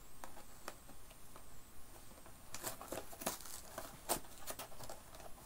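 A packet of marshmallows being pulled at and torn open: its plastic wrapper crinkling and rustling, a few faint ticks at first, then a quick run of sharp crinkles from about halfway through as the hard-to-open packet is worked at.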